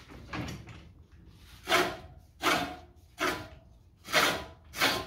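Silent Scott's Deluxe reel mower's blades scraping past the bed knife as the reel is turned slowly by hand: a faint scrape about half a second in, then five louder scrapes, roughly one blade every 0.7 s. The owner thinks it scrapes more than a sharp, properly set reel should.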